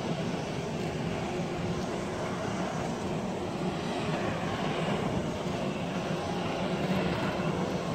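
Jet engines of a Citilink Airbus A320 airliner running steadily as the aircraft rolls along the runway after landing, with a faint low hum under the engine noise.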